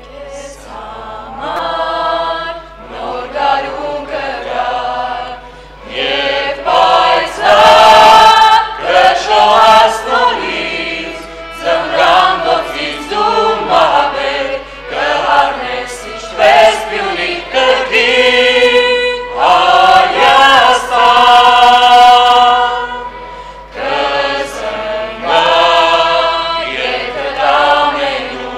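A group of young male and female voices singing a song together as a choir, starting about a second in, with short breaks between phrases.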